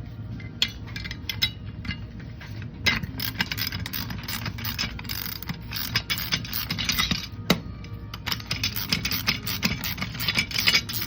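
Metal parts of a Sumner 2400 series winch clinking and clattering as it is taken apart by hand, many sharp clicks in quick succession, over background music.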